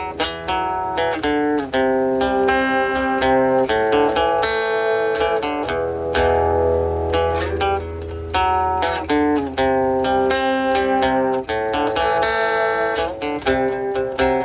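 Guitar playing an instrumental passage of many quickly plucked notes over a low sustained bass.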